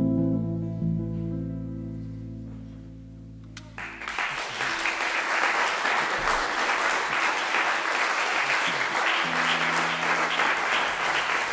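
Final held chord of a harmonica and jazz archtop guitar duo ringing out and fading away. About four seconds in, audience applause starts and carries on steadily.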